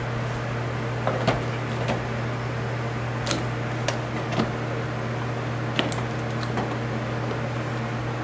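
Scattered plastic clicks and knocks as a portable jump starter is set on a car battery and its clamps and cables are handled, over a steady low hum.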